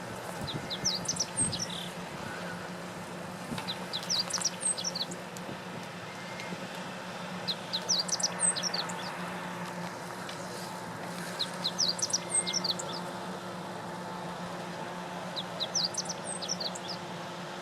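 Meadow bunting singing: five short phrases of quick, high, varied notes, one about every four seconds, each lasting about a second and a half. A steady low hum runs underneath.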